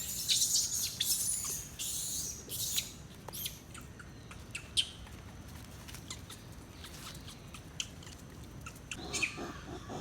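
High-pitched animal chirping and squeaking, loudest in the first three seconds, then scattered short clicks and squeaks.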